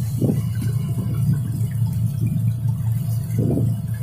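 Sea water sloshing and lapping against the rocks of a breakwater, in irregular splashes over a steady low rumble.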